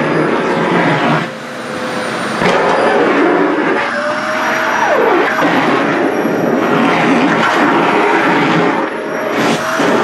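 SHARP EC-KP7F-A vacuum cleaner running, its hose nozzle sucking in skirt fabric. A steady rush of air carries a motor tone underneath. The noise dips briefly about a second in and again near the end.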